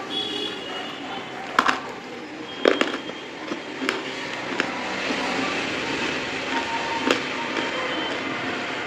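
Brittle white items crunching and cracking as they are broken, with four sharp cracks standing out over a steady hiss.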